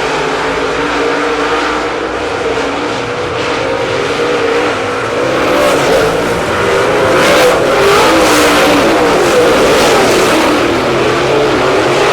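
Dirt late model race cars running at speed on a dirt oval, their engines wavering in pitch, getting louder about halfway through.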